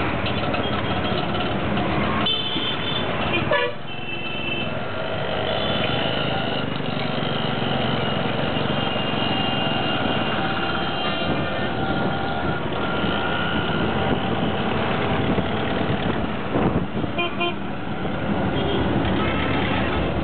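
Auto-rickshaw engine running at speed with road and wind noise, heard from inside the moving rickshaw, while vehicle horns honk several times in the surrounding traffic.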